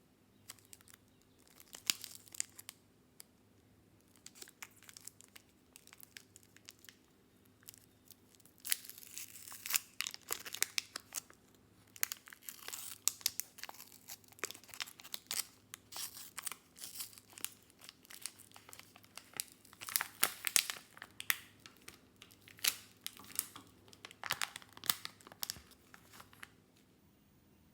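Wrapper of a Cadbury Dairy Milk Crackles chocolate bar being torn open and crinkled by hand: irregular crackling and rustling, sparse at first, much busier after about nine seconds, stopping shortly before the end.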